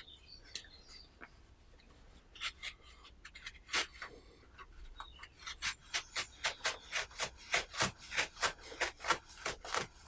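Serrated blade of a Leatherman Surge multitool sawing back and forth through a knotted-up old t-shirt: a few scattered scraping strokes, then from about halfway a steady run of strokes at about three a second.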